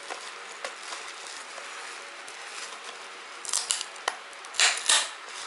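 Clear plastic shrink-wrap being pulled off a DVD case: light rustling and ticks, then several sharp crinkles in the last two seconds, the loudest near the end.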